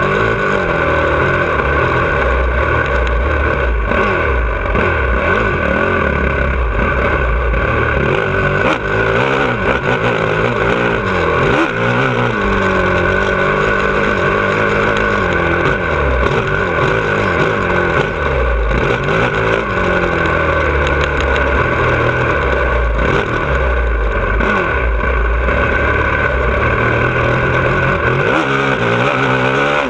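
2017 Honda CRF450R's single-cylinder four-stroke engine being ridden hard on a dirt track, its revs rising and falling again and again through the gears.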